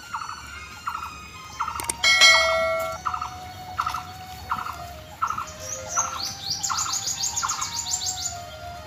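Birds calling: a short note repeated about every two-thirds of a second, joined in the second half by a fast run of high chirps. A single bell-like ring about two seconds in is the loudest sound.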